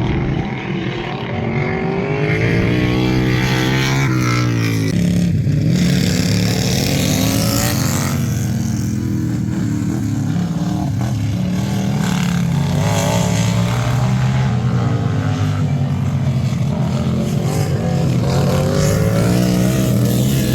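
Racing lawn tractor engines running hard, their pitch rising and falling as they speed up and back off.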